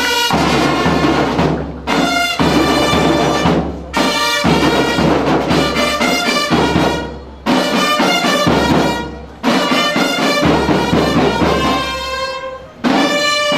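Loud brass-led music with drums, played in short phrases that break off abruptly every two to three seconds.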